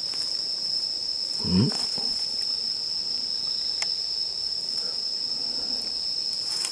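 Night insects trilling in one continuous high-pitched tone. A short murmured voice comes about one and a half seconds in, and there are a few faint clicks.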